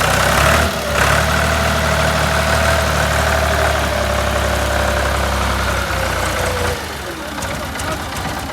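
Engine of a Ford 1210 tractor running steadily at raised speed, with a whine above the engine note. About seven seconds in it drops back to a lower, quieter running.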